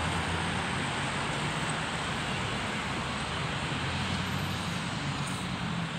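Steady road-traffic noise with a low-floor articulated tram rolling past and a car driving by, a low hum underneath.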